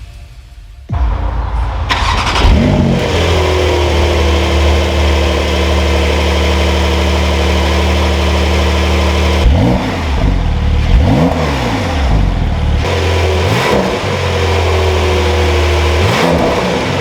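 Porsche 911 Targa 4 GTS (992) 3.0-litre twin-turbo flat-six started about a second in, flaring up and settling to a steady idle. In the second half it is revved in several quick throttle blips, each rising and falling back to idle.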